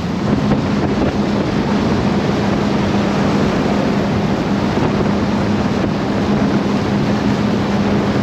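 Motorboat under way: a steady engine hum under a loud, even rush of wind and water.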